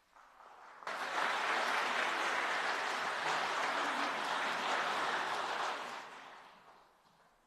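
Congregation applauding, starting suddenly about a second in, holding steady, then dying away near the end.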